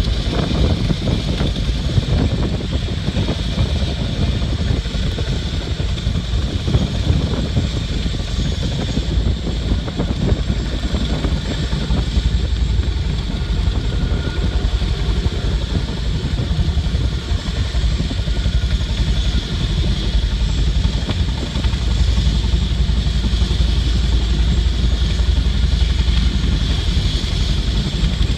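CH-47 Chinook tandem-rotor helicopter hovering, its rotors and engines running loud and steady.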